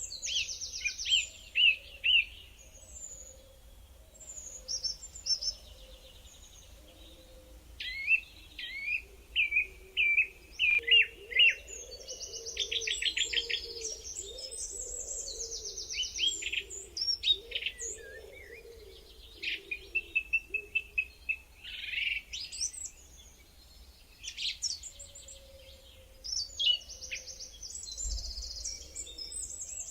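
Songbirds singing: a mix of sharp chirps, rapid trills and short whistled phrases that come in bursts with brief pauses between them.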